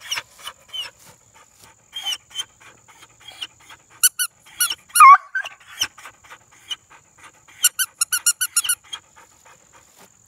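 Squeaky raccoon plush toy squeaking again and again as a young Treeing Walker Coonhound bites and tugs at it, with a quick run of about seven squeaks near the end.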